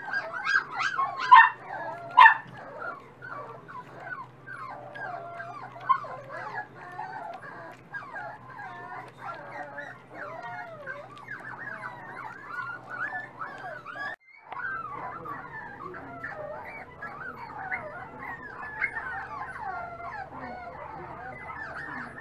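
Miniature dachshund puppies whining and squeaking almost without pause as they feed together, with a few louder, sharp yips in the first couple of seconds.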